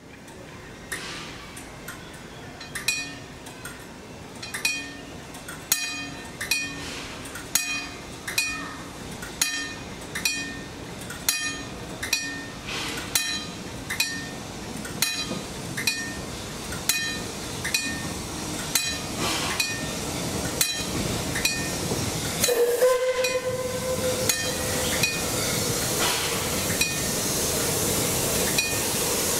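Wig wag level-crossing signal ringing: its swinging arm trips a hammer against a gong about once a second, one clear clang per swing. About three-quarters of the way through, a steam locomotive whistle sounds for about two seconds. A hiss of steam then grows louder as the train approaches.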